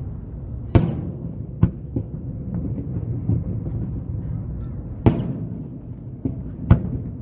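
Aerial firework shells bursting with sharp booms. Three loud bangs come about a second in, about five seconds in and near the end, with a few lighter bangs between them, over a steady low background rumble.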